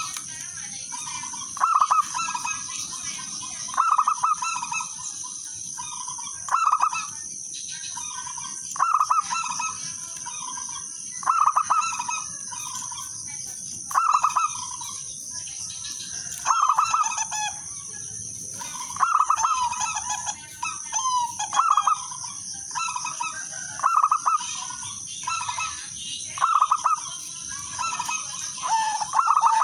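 Zebra dove (perkutut) cooing: short, rapid stuttering coo phrases repeated every two to three seconds, coming closer together in the second half.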